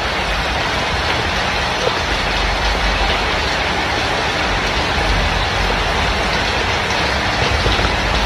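Steady rushing noise with a low rumble: wind buffeting the phone's microphone while riding a scooter.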